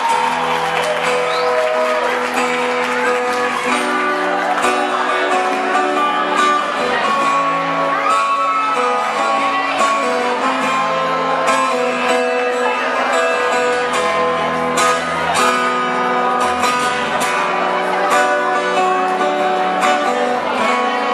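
A live pop-rock band playing an instrumental passage with no singing, electric guitar to the fore over bass and drums.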